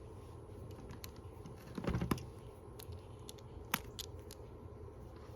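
A few small dry clicks and taps from a Leatherman Wave multitool being handled while a thumb bar is pressed onto its blade, with a short cluster about two seconds in and a single sharper click a little later.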